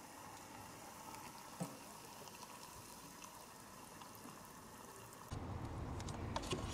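Hot water pouring from a stainless stovetop kettle into a paper cup-noodle cup: a faint steady trickle, with one small tap about a second and a half in. About five seconds in it gives way to a louder low steady background noise with a few light clicks.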